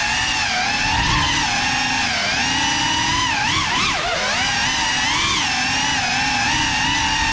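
A Cinelog 35 FPV cinewhoop drone flying on a 6S battery: its brushless motors and ducted propellers whine steadily, the pitch rising and falling with the throttle. About four seconds in, the pitch dips sharply and climbs back. Heard from the camera mounted on the drone.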